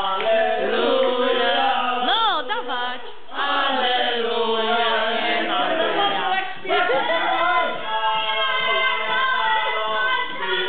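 A group of men singing together. One voice warbles a wavering note about two seconds in.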